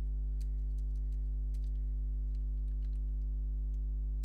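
Computer keyboard keys clicking at an irregular pace as a command is typed, over a loud, steady, low electrical hum.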